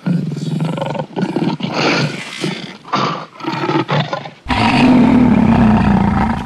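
Lion roaring: a run of short calls, then one longer, louder roar about four and a half seconds in that cuts off suddenly.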